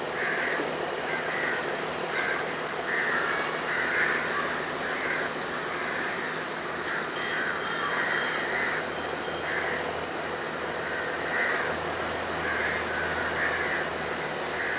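Sri Lanka Railways Class S11 diesel power set rolling slowly round a curve, a steady low rumble that grows heavier near the end. Short harsh bird calls repeat over it about once a second.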